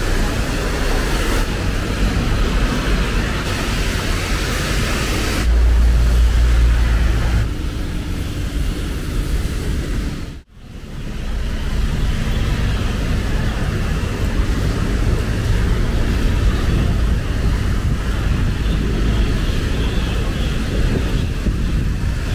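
Street ambience of road traffic on rain-wet roads: a steady hiss of tyres over a low rumble, heavier for a couple of seconds about six seconds in. The sound drops out briefly at a cut about ten seconds in, then carries on.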